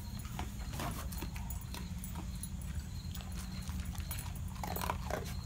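Dog eating dry kibble from a bowl: irregular crunching clicks of chewing.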